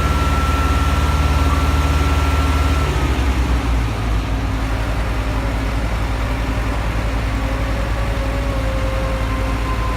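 A large engine running steadily, with a high whine over it, drops to a lower, quieter idle about three seconds in and then keeps idling evenly.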